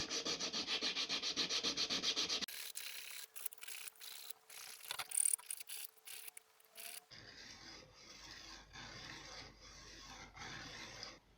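Wood being worked by hand with an abrasive tool, in rapid back-and-forth rubbing strokes of about six a second. A few seconds of lighter, irregular scraping and small knocks break it in the middle, then the rubbing starts again and stops just before the end.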